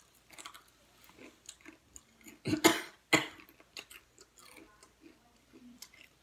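A person chewing a crunchy Paqui ghost pepper tortilla chip: scattered small crunches, with two louder sharp bursts about two and a half and three seconds in.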